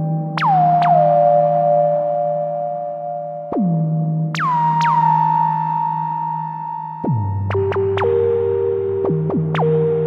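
Roland Jupiter-8 analog synthesizer playing an improvisation. It layers held chords and single notes that each swoop quickly down into pitch from above, over a sustained low note that shifts twice, dropping lower near the end.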